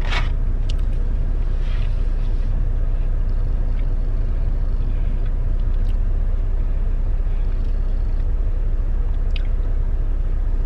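Semi-truck's engine idling: a steady low rumble, with a few faint short clicks over it.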